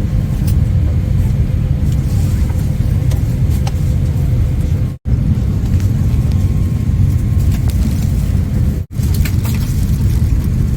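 Steady low rumble of an airliner cabin in motion, broken twice by an instant of silence about five and nine seconds in.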